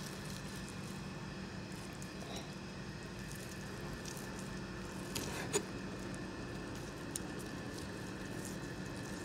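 Large knife cutting cooked pork spare ribs into rib tips on a wooden cutting board: soft squishing of meat and cartilage, with a couple of sharp knocks of the blade on the board, the loudest about five and a half seconds in, over a steady low hum.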